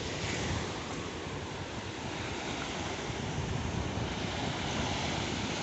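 Sea waves washing steadily on the shore, with wind buffeting the microphone.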